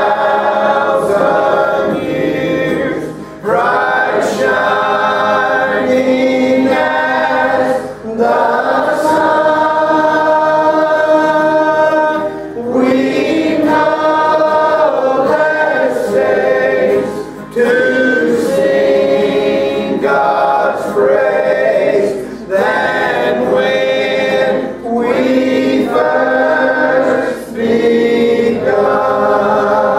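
Church congregation singing a gospel song, led by a man's voice, in held phrases a few seconds long with short breaths between them.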